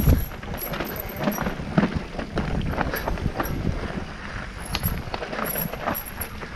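Mountain bike riding over rough trail: frequent knocks and rattles from the bike and tyres on uneven ground, over a continuous wind rumble on the microphone.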